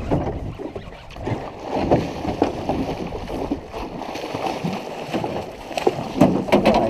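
Hooked muskie thrashing at the surface close to a small rowboat: irregular splashing and sloshing, with sharp knocks, loudest near the end as the landing net comes out.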